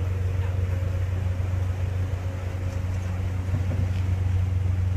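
Fishing boat's engine running, a low steady drone as the vessel motors past.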